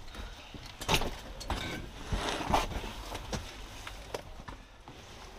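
Footsteps and the rattle of carried gear as a player moves quickly through a narrow concrete corridor: a string of irregular knocks and clicks roughly every half second to second.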